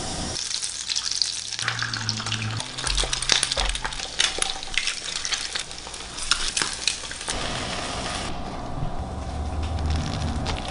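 Egg and bagel halves sizzling in hot pans: a steady crackling sizzle with many sharp little pops, changing abruptly at a few cuts.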